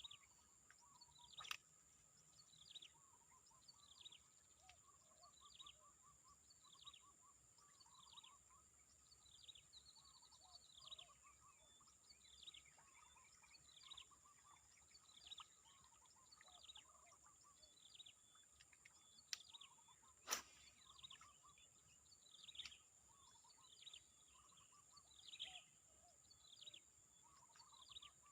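Faint birdsong: short downward-sweeping calls repeated about once a second, with some lower chattering notes, over a steady high-pitched whine. A sharp click stands out about twenty seconds in.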